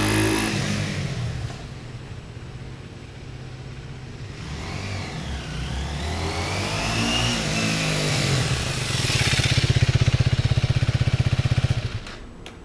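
MZ RT-125 single-cylinder motorcycle engine pulling away and fading, then revving up and down at a distance. It comes back close and runs loudly at low revs with an even pulse, then stops suddenly near the end.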